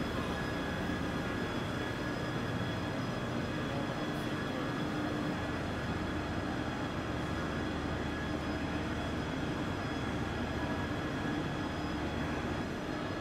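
Self-propelled multi-wheeled transporter moving a rocket engine section, its drive running with a steady hum and several steady high-pitched whining tones.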